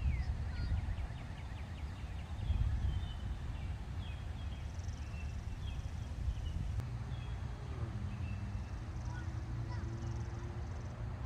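Wind rumbling on the microphone, with scattered short, high bird chirps throughout.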